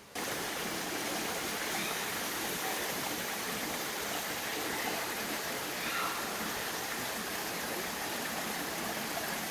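Running water: a steady rush of a stream flowing into and out of a rock bathing pool.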